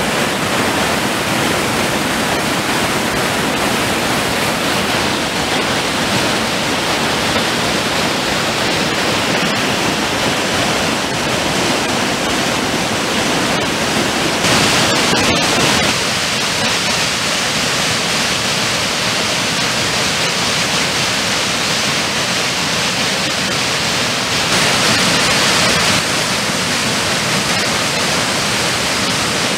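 A flood-swollen mountain stream rushing over rocks: a loud, steady wash of white water. The level and tone shift slightly twice, about halfway through and again a few seconds before the end.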